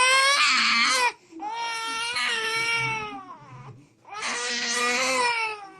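Young child wailing loudly: three long, high-pitched cries with short breaths between them.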